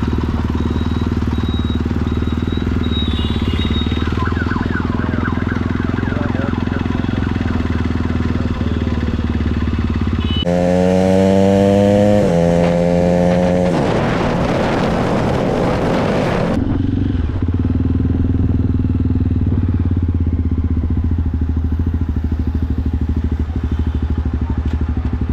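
Jawa Perak's 334 cc single-cylinder engine running steadily while the motorcycle is ridden along the road. About ten seconds in, a loud horn-like tone steps through several pitches for about three seconds, followed by a couple of seconds of rushing noise.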